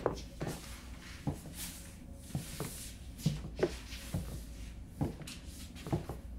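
Footsteps and rummaging: scattered light knocks and rustles, irregular and about one or two a second, as people move about a cluttered room searching through things, over a low steady hum.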